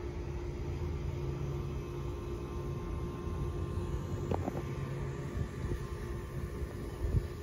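A steady low machine hum over a rumble, with a few light knocks about four seconds in and a louder thump near the end.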